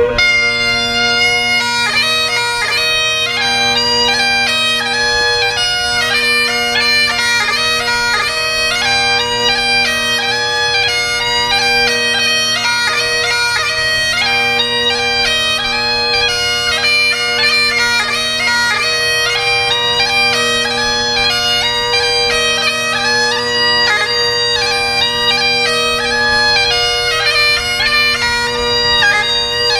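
Bagpipes played solo: a steady drone holds underneath while the chanter plays a melody of quick, changing notes.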